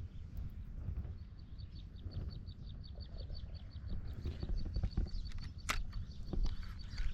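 A bird chirping outdoors: one short high note repeated evenly, about five a second, beginning about a second in. Under it is a low rumble of wind or handling noise, with one sharp click a little before the end.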